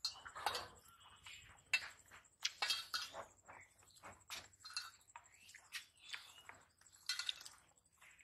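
People eating rice and curry by hand from steel plates: irregular mouth smacks and chewing, with small clinks and scrapes of fingers against the metal plates.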